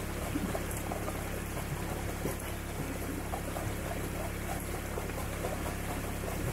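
Shallow creek water flowing and burbling, with a plastic gold pan being swirled underwater to wash the gravel out of it.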